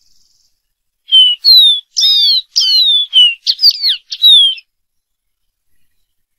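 Dark-throated seedeater singing: one song phrase of about ten quick, clear whistled notes, most slurring downward. It starts about a second in and lasts about three and a half seconds.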